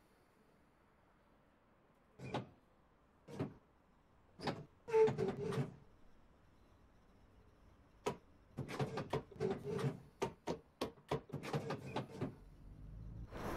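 Scattered sharp clicks and knocks, thickening into a quick run of them in the second half, typical of the door and fittings of a British Rail Class 314 electric multiple unit. Near the end a low rumble begins as the train starts to move.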